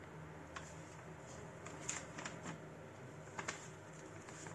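Sheets of a paper manual handled and turned by gloved hands: a few short, sharp paper crackles and rustles, bunched about two seconds in and again around three and a half seconds.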